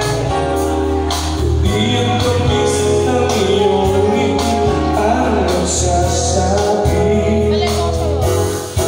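A singer singing into a microphone over amplified backing music with a steady bass line.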